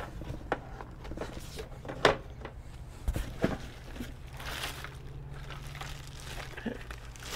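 Rummaging in a cardboard box and crinkling a plastic wrapper as a grill scraper is pulled out and unwrapped, with a few scattered knocks and bumps from the handling.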